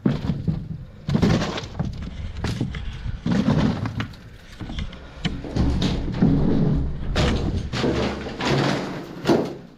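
A run of knocks, thuds and scrapes from someone clambering over debris and broken window frames, with the body-worn camera bumping and rubbing as it moves.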